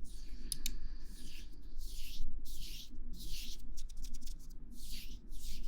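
ASMR friction sounds: rhythmic rubbing strokes close to the microphone, a soft hissing swish about every two-thirds of a second, with a few sharp clicks about half a second in.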